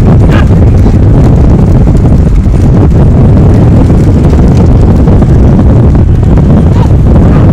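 Loud, steady wind rush on the microphone from filming at speed, over a galloping pair of racing bulls pulling a light rekla cart: hoofbeats and the cart running on the road.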